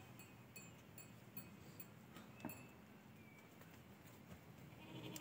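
Near silence with faint scattered ticks and clicks. Right at the end a goat begins to bleat.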